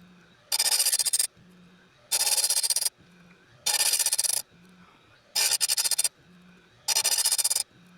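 A saw chain being sharpened on a chain grinder, one cutter at a time: five rasping grinding passes, each under a second, about one every one and a half seconds, with a faint low hum between them.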